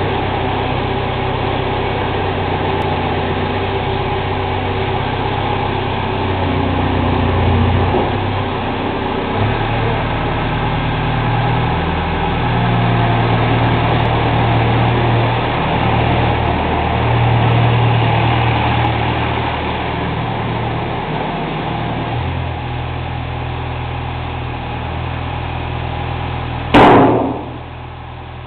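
JCB 185 skid steer's diesel engine running, its note stepping up and down now and then. Near the end comes one loud thump, after which the engine runs quieter.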